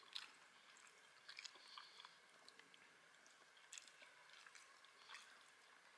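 Faint chewing of a mouthful of soft-cooked chorizo rice, with small wet mouth sounds and scattered light clicks of chopsticks now and then.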